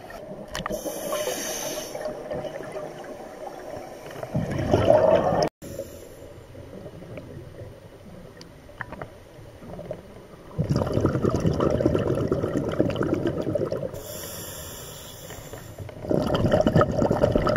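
Scuba diver breathing through a regulator underwater: three long rushes of exhaled bubbles, about 4, 11 and 16 seconds in, with quieter stretches between.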